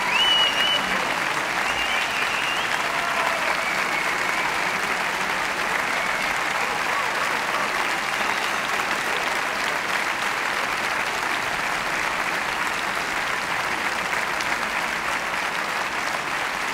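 Large crowd applauding steadily, with some cheering in the first few seconds.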